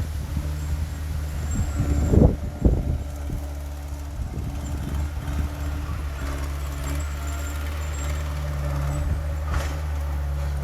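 Heavy diesel earthmoving machine's engine running steadily, with two sharp clanks about two seconds in and a lighter one near the end.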